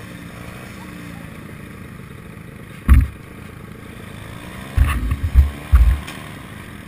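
Dirt bike engines idling steadily. Loud low thumps hit the microphone about three seconds in and several more times between five and six seconds.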